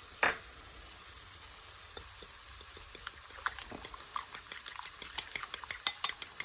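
Butter and spinach sizzling steadily in a frying pan. A utensil knocks once just after the start, then from about two seconds in clicks against a bowl, quickening into rapid whisking of eggs near the end.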